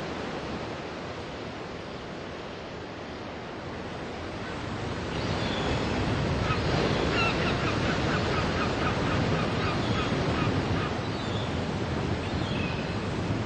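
Ocean surf washing onto a beach, a steady rushing noise that grows louder about five seconds in. Over it comes a string of short, repeated bird calls from about six to eleven seconds in, with a few more near the end.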